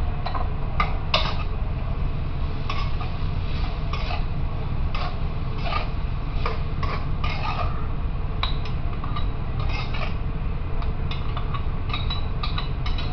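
A steady low rumble with light clicks and clatter of kitchen items scattered through it.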